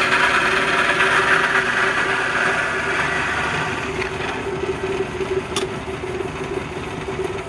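A machine motor running steadily under a strong hiss that slowly weakens, with a sharp click about five and a half seconds in.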